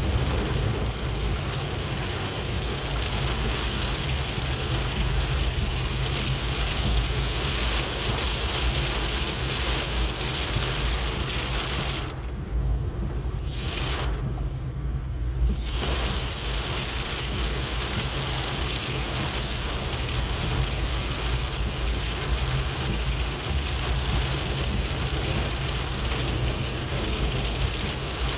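Heavy rain falling steadily, a dense hiss over a constant low rumble. The hiss thins twice for a second or so a little under halfway through.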